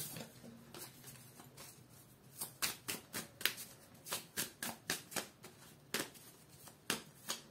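A deck of tarot cards being shuffled by hand, the cards slapping and flicking against each other. Soft for the first two seconds or so, then a quick irregular run of sharp card slaps from about two and a half seconds in.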